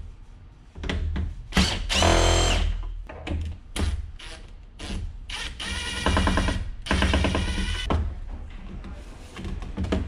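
Cordless power driver whirring in a series of short runs as it backs screws out of a TV's plastic rear panel. The loudest run comes about two seconds in, with a rising whine, and two longer runs follow around six to eight seconds.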